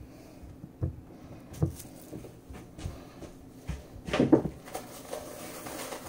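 Scattered soft knocks and thumps of things being handled in a kitchen, with a louder cluster of knocks about four seconds in.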